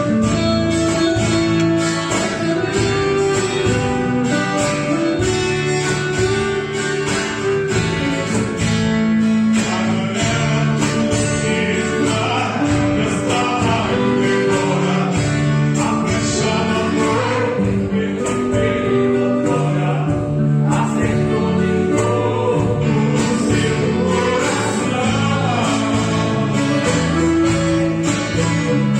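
Two men singing a Portuguese gospel hymn together, accompanied by guitar.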